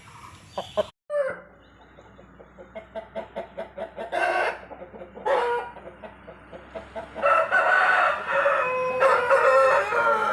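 Black Aseel rooster clucking in a quick series of short calls, then crowing with long drawn-out calls in the last few seconds.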